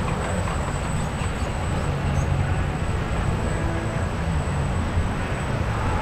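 Churning, rushing water of an Intamin river rapids ride channel around the round raft boat: a steady rushing noise with a heavy low rumble.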